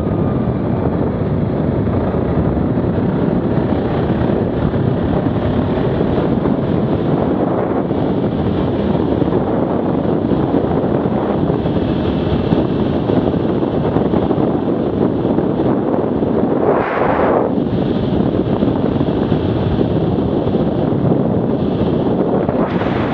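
Heavy wind buffeting the microphone over the running engine of an Arctic Cat 650 H1 ATV at speed, with a short, sharper hiss about three quarters of the way through.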